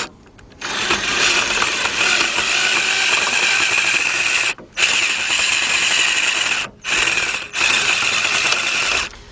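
Ratchet turning a 10 mm socket on a long extension, clicking fast in runs with three short pauses, loosening a bolt to free the drive belt.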